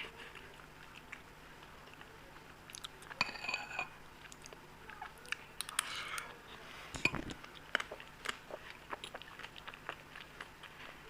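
A person eating Indian sweets close to the microphone: wet chewing, biting and small mouth clicks, with a brief ringing clink about three seconds in and a soft low thud about seven seconds in.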